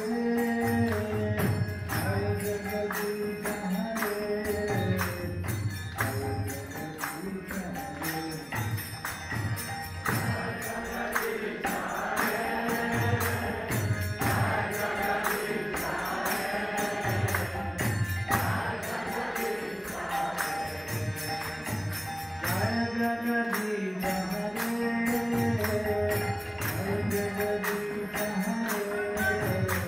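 Devotional kirtan. A lead voice chants a mantra over a sustained harmonium drone, with a hand drum beating a steady rhythm and small hand cymbals clinking along with it.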